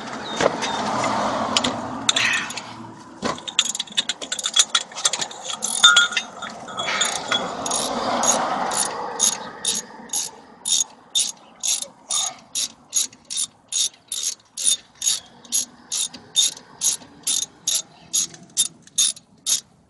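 Hand ratchet wrench clicking as it backs out a loosened brake caliper bolt. The clicking is quick and irregular at first, then settles into steady swings of the handle, about two clicking bursts a second.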